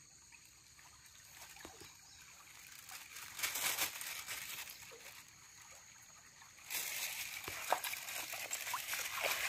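Shallow stream water trickling and sloshing. About three and a half seconds in there is a brief louder noise, and about two-thirds of the way through the water sound suddenly gets louder and stays up.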